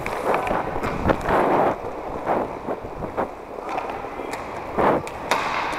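Inline hockey skate wheels rolling and scraping on a plastic sport-court floor, in uneven surges, with a few sharp clacks.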